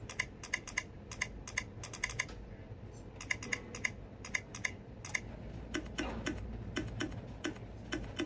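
Simulated mechanical-keyboard key clicks from a smartphone keyboard app, tapped out in quick runs of keypresses. About six seconds in the clicks change to a different key sound.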